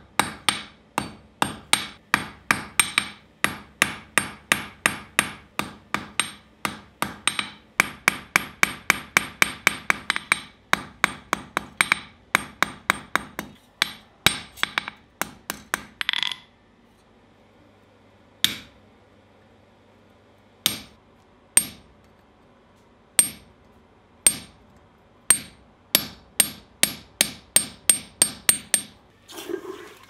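A hand hammer forging a small piece of red-hot steel on an anvil, with steady, ringing blows about three a second. After about 16 s the blows come more sparsely and unevenly, then quicken again. Near the end there is a short burst as the hot piece is quenched in a bucket of water.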